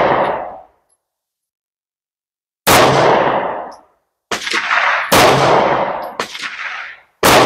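A 9mm pistol fired in slow single shots. One shot's ringing tail dies away at the start, then about five more shots follow at roughly one- to one-and-a-half-second intervals, each a sharp crack followed by about a second of echo.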